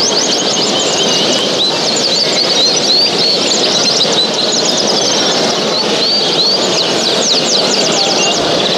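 Many small cage birds chirping and trilling at once, a dense, overlapping chorus of short high calls over a steady hall din.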